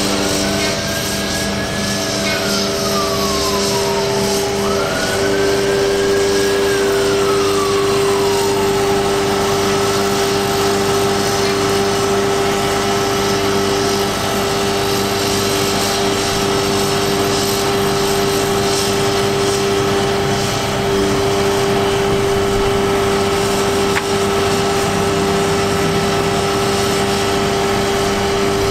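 Palfinger PK32080 knuckle-boom crane operating on its truck: the engine and hydraulic pump run steadily while the boom unfolds. A hydraulic whine rises, holds and falls away twice in the first nine seconds, then settles into a steady high whine.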